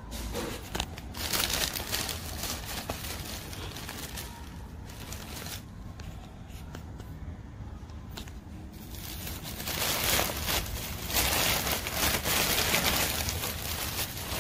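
Plastic packaging crinkling and rustling in irregular bursts as a plastic-wrapped door seal strip is handled and a plastic courier bag is pulled open. The rustling is louder and denser in the last five seconds.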